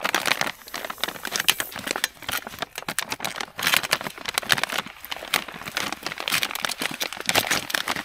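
Foil-laminate self-heating meal pouch crinkling and crackling as it is gripped, pressed and folded shut by hand, in dense irregular bursts.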